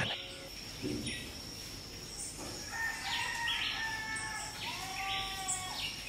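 Forest ambience: a steady high-pitched tone throughout, with several short bird calls joining in from about three seconds in.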